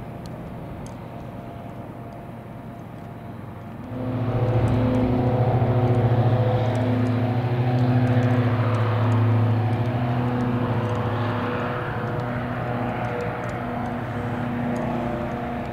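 Propeller aircraft engine running with a steady droning hum, growing much louder about four seconds in and easing off slightly toward the end.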